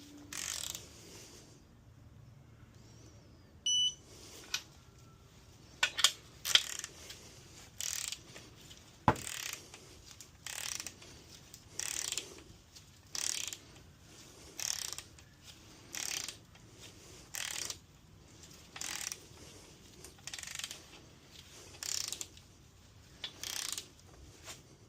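Socket ratchet clicking in short repeated strokes, about one every second and a half, as main bearing cap bolts are tightened; a few sharper clicks about six and nine seconds in. A short electronic beep about four seconds in.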